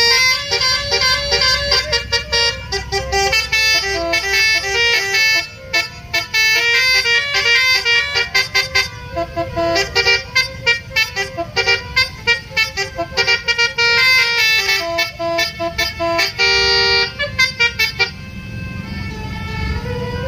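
Tour bus's roof-mounted multi-trumpet horn (Indonesian telolet style) playing a fast tune of rapidly changing notes with short breaks, stopping about 18 seconds in. Road traffic rumbles underneath.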